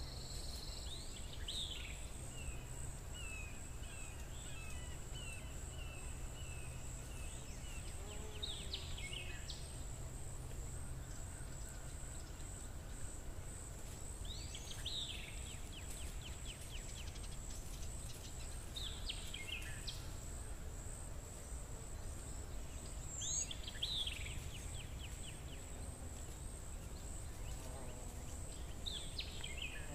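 A bird calling about every five seconds, each call a quick downward sweep trailing into a short rattle, over a steady high, thin whine and a low hum.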